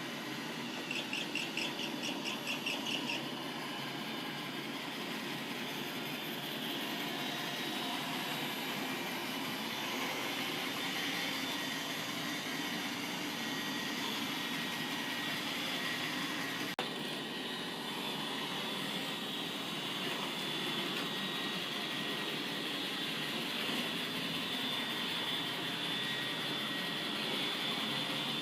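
iRobot Roomba robot vacuum running, a steady whir of its motors and brushes with a constant high-pitched whine. About a second in there is a brief, rapid high-pitched pulsing for a couple of seconds.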